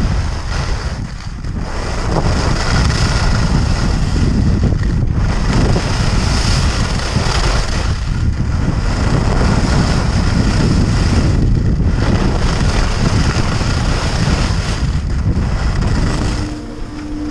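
Wind rushing and buffeting over an action camera's microphone during a fast ski run, with the skis hissing over the snow, easing briefly every few seconds. About a second before the end the wind drops and a steady low two-note hum comes in.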